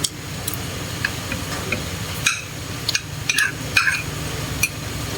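Eating utensils clinking against a bowl and plate during a meal: a handful of sharp clinks, most of them between about two and four seconds in, over a steady low hum.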